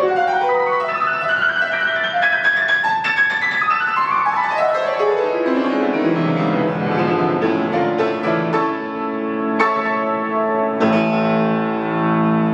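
Estonia grand piano played fast and loud: a rising run of notes, then a falling run, then heavy chords, ending on a held chord near the end.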